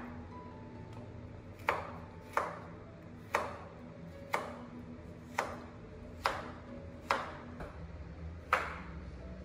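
A knife chopping food on a cutting board: about eight single, evenly paced chops, roughly one a second.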